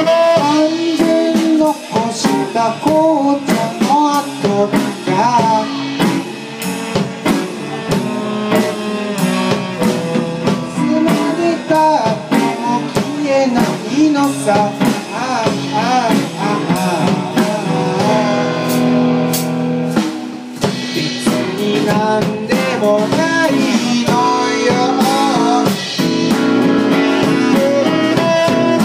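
Live song: a man singing over a strummed acoustic guitar, with a drum kit keeping the beat. The voice drops out briefly about two-thirds of the way through while the guitar and drums carry on.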